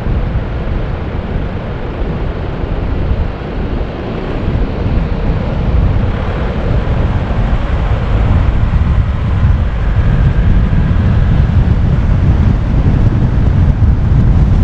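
Car driving on the road: steady rumble of road and wind noise with wind buffeting the microphone, growing louder from about halfway through as the car picks up speed.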